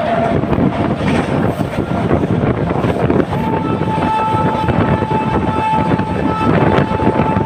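Express train passing at speed in a steady rumble of wheels and coaches, while the WAP-7 electric locomotive's horn sounds briefly at the start and then blows almost continuously from about three seconds in, with short breaks.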